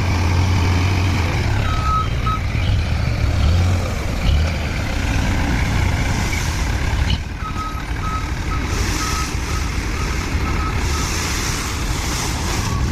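Truck engine rumbling with a reversing alarm beeping: three short beeps about two seconds in, then a steady run of beeps from about seven seconds until near the end, over a constant rushing noise.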